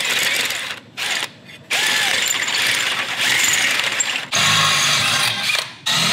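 Cordless drill/driver running bolts into a go-kart torque converter guard in several bursts with short pauses, a mechanical whirring and ratcheting. From about four seconds in the sound changes to a lower hum as a drill bores into a steel plate on the kart frame.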